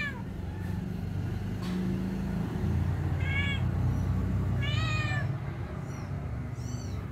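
A cat meowing: a few short, high-pitched meows, the loudest about five seconds in, over a low steady rumble.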